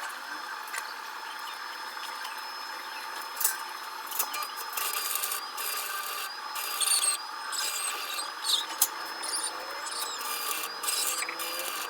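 Hand-tool work on metal parts: scattered clicks and knocks over a steady faint hum, busier from about a third of the way in.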